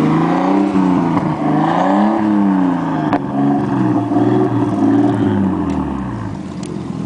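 Nissan Skyline R32's engine being revved in a few swells. The pitch climbs highest about two seconds in, rises again more gently about five seconds in, and drops back toward idle near the end.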